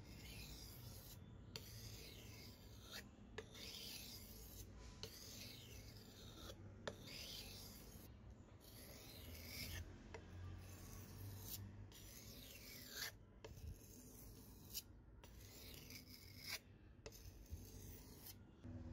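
Steel knife blade scraping back and forth on a wet stone block, sharpening its edge: a quiet rasping hiss in repeated strokes a little under one a second, with an occasional click where a stroke ends.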